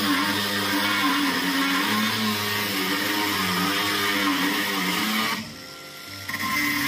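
Parkside PWSAP 20-Li D4 cordless brushless angle grinder cutting a rusty steel rod with a cut-off disc: steady grinding. The noise eases off for about a second near the end as the disc lifts from the cut, then resumes.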